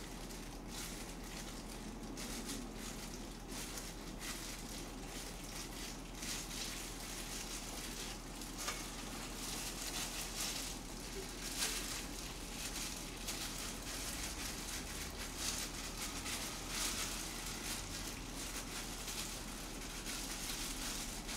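Soft, irregular rustling and crackling of hands pressing seasoned rice into fried tofu pouches, over a steady faint hiss and low hum.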